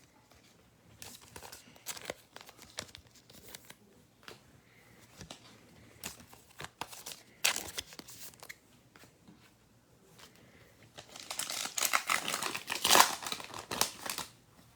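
Trading cards being handled with scattered light clicks, then near the end a card pack's wrapper crinkling loudly for about three seconds as it is torn open.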